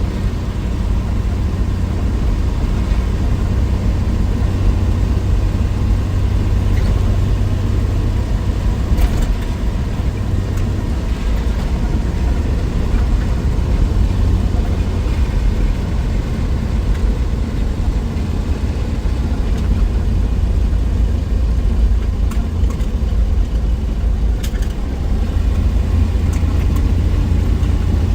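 1963 Willys Wagon's 230 Tornado overhead-cam inline six running under way, a steady low engine and road drone. The engine note eases a little about eleven seconds in and picks up again near the end.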